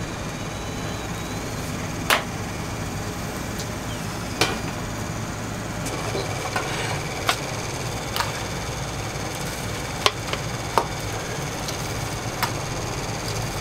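Sharp knocks of kitchen utensils, about seven, spaced one to three seconds apart, over a steady low hum of kitchen equipment.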